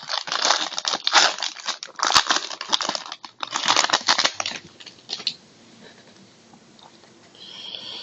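A trading-card pack wrapper being torn open and crinkled: a quick run of crackly rustling for about five seconds, then much quieter handling.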